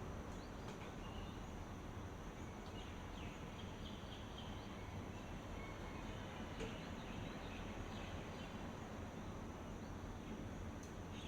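Faint outdoor morning ambience: a steady high insect drone over a low, even background rumble, with scattered short bird chirps a few seconds in and again after the middle.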